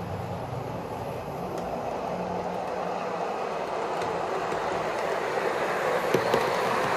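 HO scale model train running on the layout track, a steady rumble of wheels and motor that grows louder as the diesel locomotive and its coaches approach and pass. A couple of sharp clicks come about six seconds in.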